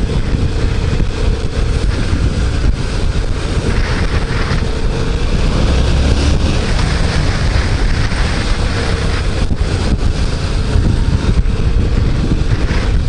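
Yamaha MT-07's parallel-twin engine running steadily in third gear at about 4000 rpm on the move, under heavy wind noise on the microphone.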